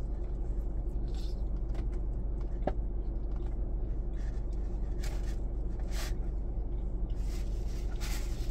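Steady low hum inside a car cabin, with faint mouth clicks and smacks of someone chewing a bite of burger.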